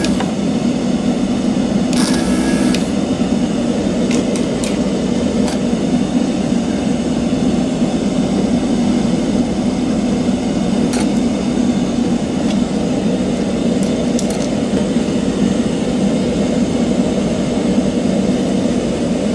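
Steady machine drone with a low hum, broken by a short brief burst near the start and a few light ticks as small mouse parts are handled and set down.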